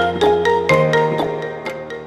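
A phone ringtone melody: quick, bright, mallet-like notes about four a second over held low chords, with the chord changing under a second in.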